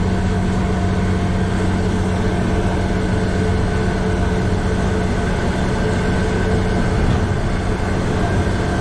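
Truck engine running steadily at cruising speed, heard inside the cab as a constant low hum mixed with road and wind noise.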